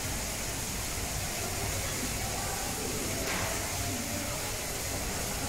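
Steady background hiss with a constant low hum and faint, indistinct distant voices.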